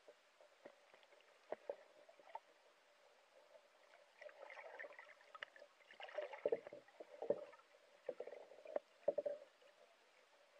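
Faint, muffled underwater sound heard through a submerged camera: water gurgling and sloshing, with scattered small clicks and knocks that grow busier in the middle.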